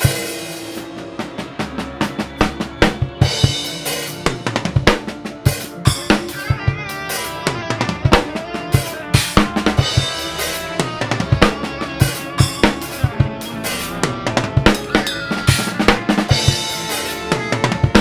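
Acoustic drum kit played fast along to a backing track: quick runs of snare and bass drum hits with cymbals over pitched, sustained music.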